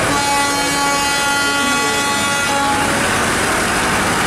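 A diesel locomotive's horn sounds one long, steady blast of about three seconds, over the continuous rumble and clatter of broad-gauge passenger coaches rolling past on the adjacent track. After the horn stops, the rolling noise of the passing train goes on.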